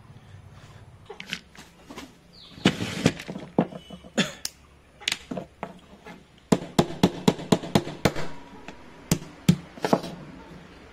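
Boiled crab shells and claws being cracked open by hand: a run of sharp cracks and knocks, irregular at first, with a quick series of about six in a row a little past the middle.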